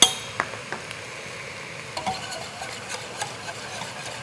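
A metal spoon clinks sharply against a steel cooking pot at the start, ringing briefly, then knocks and scrapes a few more times as chicken pieces are stirred and turned over raised heat. A faint steady sizzle runs underneath.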